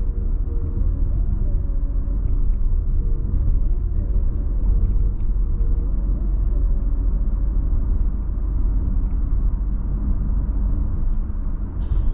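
Steady low rumble of road and engine noise inside a moving Mazda car's cabin, with a faint hum that rises and falls.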